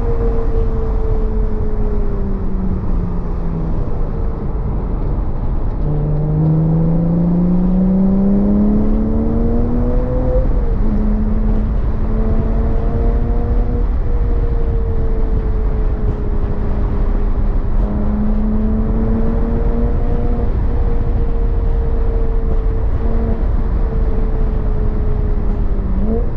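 Porsche Boxster S (987.2) 3.4-litre flat-six engine under way at speed. Its note falls a few seconds in, then climbs steadily for about four seconds and drops at a gear change, then holds a fairly steady pitch with small rises and falls, over a heavy low rumble.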